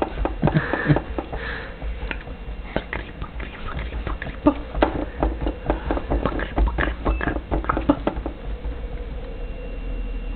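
A happy baby's short coos and squeaks, mixed with many small clicks and rustles, over a steady low hum.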